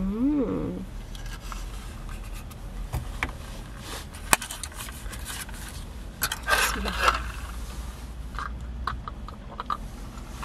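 Plastic drink-cup lid and drinking straw being handled: scattered clicks and scrapes, with a longer scraping burst about six seconds in as the straw goes through the lid.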